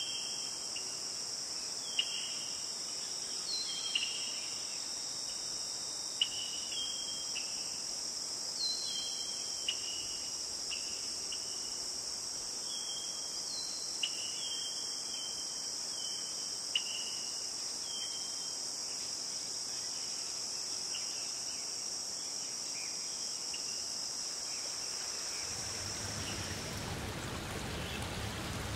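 A steady, high-pitched insect chorus, like crickets trilling, with short chirps and a few faint clicks over it. Near the end it gives way to the rush of flowing water.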